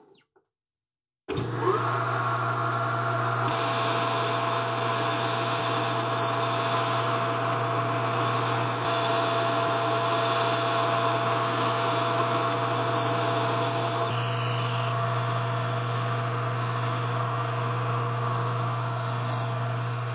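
Metal lathe running steadily while an insert cutting tool turns down the outside of a metal nozzle body, a constant motor hum with cutting noise. It starts abruptly about a second in.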